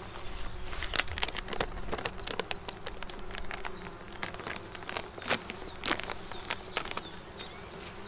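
Clear plastic cover foil being peeled off the top bars of a beehive, crackling in many short sharp snaps as it tears loose from the propolis gluing it down.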